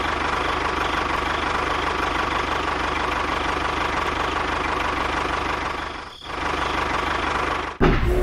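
Tractor engine running steadily with an even, low pulsing beat, dipping briefly about six seconds in. Just before the end it cuts off abruptly and a louder, different sound takes over.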